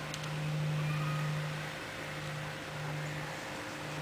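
A steady low mechanical hum that swells and eases every second or two, over a faint hiss.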